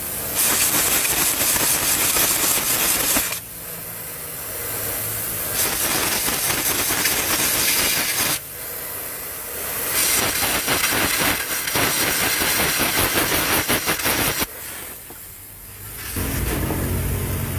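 Compressed-air blow gun blasting into the threaded cylinder-head bolt holes of an engine block, in three long hissing blasts of a few seconds each, clearing out WD-40 and dirt from the threads so the head bolts can torque properly.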